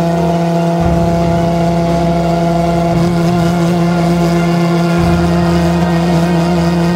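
Homemade valveless pulsejet engine running steadily, a loud buzzing drone held at one constant pitch with a stack of overtones above it.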